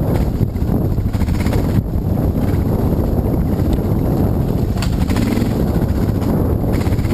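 Dirt bike engine running as the bike rides a single-track trail, mixed with wind buffeting on the helmet-mounted microphone.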